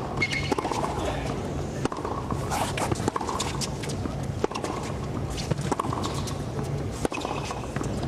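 Tennis rally on a hard court: rackets strike the ball back and forth, sharp pops about once a second, over a steady low hum and a faint crowd murmur.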